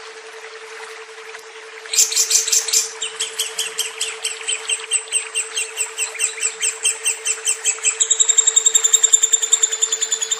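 Lovebird's long chattering trill, starting about two seconds in as a run of quick high chirps, about five a second. Near the end it speeds up into a faster, denser chatter. A steady low hum runs underneath.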